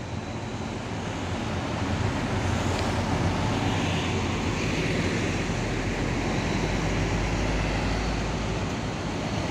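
Steady low engine rumble and road-traffic noise with a hiss over it, building up over the first couple of seconds and then holding.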